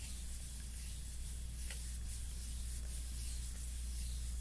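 Deck of cards being shuffled hand over hand, a faint soft rustle of card stock sliding, over a steady low electrical hum, with one small click about a second and a half in.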